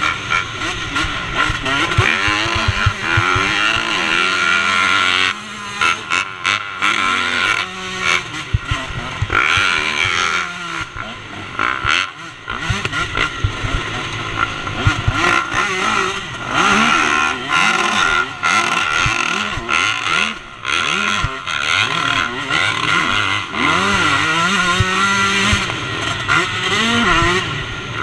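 KTM 125 two-stroke motocross bike's engine being ridden hard, its pitch climbing and dropping over and over as the throttle is opened and shut through the gears. There are short drops where the throttle is closed, near the middle of the clip.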